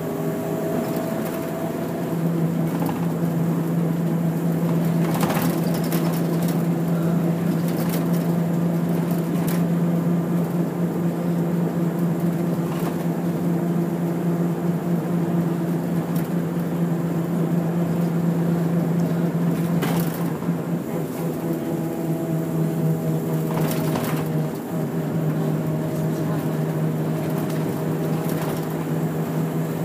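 Route bus's engine and running noise heard inside the cabin while driving: a steady low drone with a few higher hums, broken by occasional short knocks and rattles. The drone dips briefly about 24 seconds in, then carries on.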